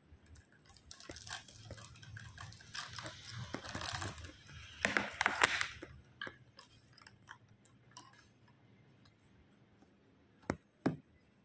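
Beaded plastic flower stems and leaves being handled and shifted in a plastic pot: a crackly rustle full of small clicks, loudest about halfway through. Near the end, two sharp clicks.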